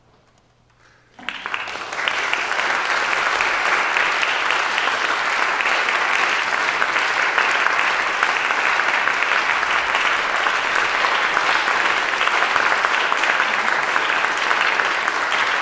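Audience applause in a church hall: after about a second of hush it breaks out suddenly and continues as steady, dense clapping.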